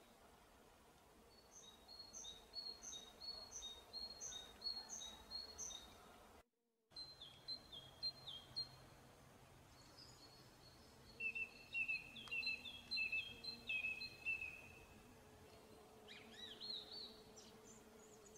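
Faint outdoor ambience of songbirds singing: runs of short high chirps repeated about two a second, later a run of lower repeated notes. The sound drops out completely for a moment about six and a half seconds in, and a faint low hum comes in near the end.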